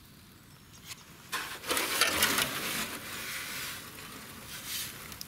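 Rustling and crackling handling noise, quiet at first, then loudest from about a second and a half in to about three seconds, easing off afterwards.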